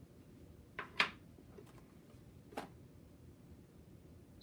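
A few short clicks and crinkles from a cardboard ink-cartridge box and its foil-wrapped cartridge being handled and set down, the loudest about a second in.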